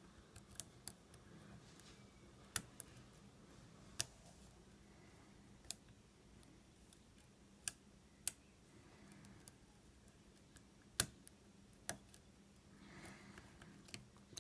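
Lock pick working in the keyway of a Master Lock bike lock: scattered small sharp metallic clicks and ticks, about a dozen, at irregular intervals, as the pins are probed one by one.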